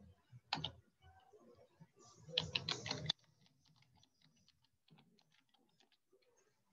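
Typing on a computer keyboard: a single click about half a second in, then a quick, louder burst of keystrokes around two and a half seconds in, followed by faint scattered ticks.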